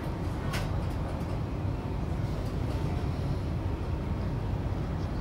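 Hiroden 5100-series (Green Mover Max) low-floor tram running, heard from inside the car: a steady low rumble of wheels and traction equipment with a faint whine, shortly after pulling away from a stop. A single sharp click comes about half a second in.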